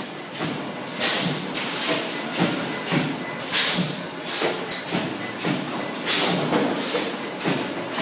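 Wire mesh cable tray production machinery running: irregular clanking knocks and short bursts of hissing noise at uneven intervals.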